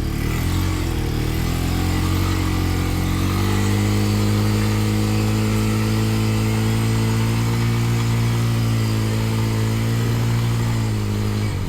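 ATV engine revving under load as a stuck quad is driven out of a mud hole: the engine rises to higher revs about three and a half seconds in, holds there steadily, then drops off near the end.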